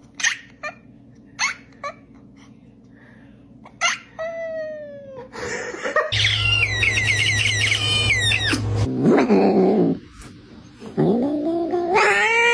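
Domestic cats calling in a string of separate clips: a few short chirps, then a falling meow, then a quick run of short chirping calls over a low hum, and near the end a long drawn-out meow that rises and falls.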